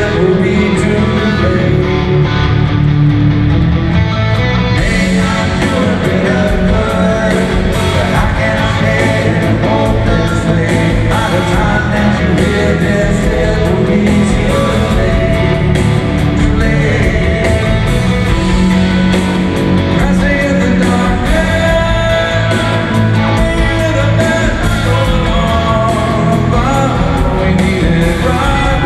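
Live rock band playing loudly through a concert PA: a male lead vocal over electric guitars, bass and drums, heard from among the audience.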